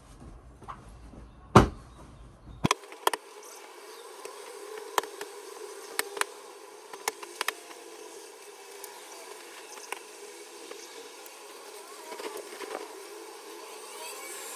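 Bedding and pillows being handled as a bed is made: a sharp thump about a second and a half in, then scattered light knocks and rustles over a steady hum.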